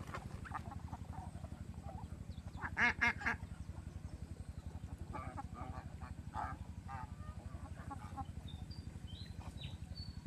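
Farm ducks quacking, with a loud cluster of calls about three seconds in and more scattered calls after. Short high chirps come near the end, over a steady low hum.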